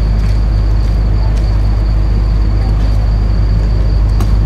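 Steady, loud low drone of a large engine running without change, with a thin high whine held over it and a couple of faint clicks.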